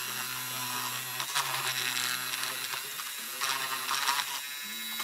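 Small handheld pen-style rotary tool running with a steady motor hum, its fine bit grinding into a plastic model part in two brief bursts, about a second and a half in and again near four seconds.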